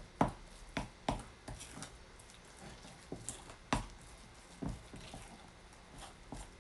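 Scattered light clicks and taps of kitchen utensils and a bowl being handled, irregular and about half a second to a second apart, over quiet room tone.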